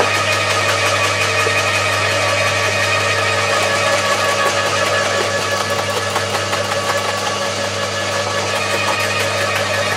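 Two electric roller garden shredders, a Bosch AXT 2300 and an Atika LH 2500, running together with a steady, loud motor hum as they crush thuja branches fed into their hoppers.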